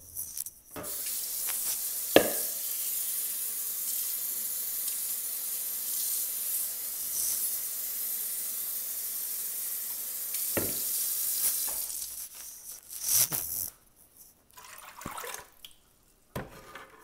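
Water running steadily into a pan of soaked wheat and lentils for about ten seconds, with a sharp knock shortly after it starts and another just before it stops, then a few light clicks.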